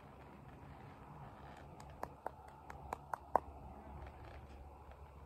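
Six sharp clicks in quick succession about two seconds in, the last one the loudest, over a faint low hum.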